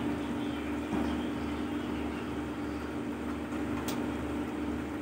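Chicken gravy boiling hard in an open pressure cooker on a gas stove: a steady bubbling simmer with an even hum under it. There is a single light click about four seconds in.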